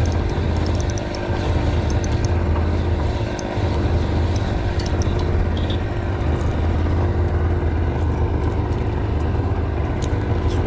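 An engine running steadily with a low, even hum and a brief dip now and then, with faint scattered ticks above it.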